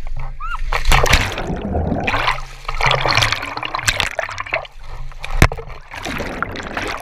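Water splashing and sloshing in irregular surges, with a sharp knock about five and a half seconds in.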